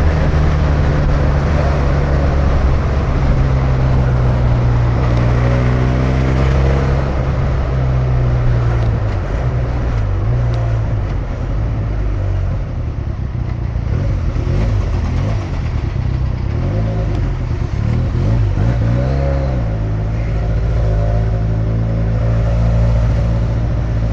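Benelli touring motorcycle's engine running under way, heard from inside the rider's helmet. The revs climb about six seconds in, then drop and rise again a few times.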